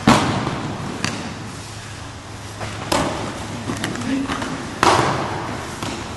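Aikido breakfalls on the mat: four sharp slaps and thuds as thrown partners hit it, the loudest right at the start and others about a second, three seconds and five seconds in, each echoing in a large hall.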